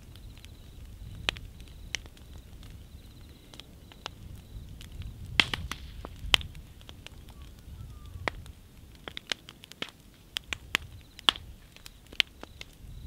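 Fire burning down to embers: scattered sharp crackles and pops from burning wood, with louder snaps about five and six seconds in and again near the end, over a low rumble.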